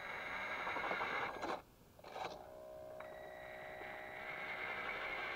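Small electric drive motors and plastic gears of a radio-controlled toy forklift whirring steadily, cutting out for about half a second near the middle and starting up again at a different pitch.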